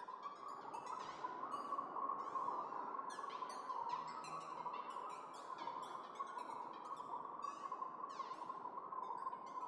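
Electronic Csound accompaniment: a steady rushing noise drone focused in one middle pitch band, with a scatter of quick, randomly timed high chirps that each sweep downward, several a second. The noise swells up right at the start.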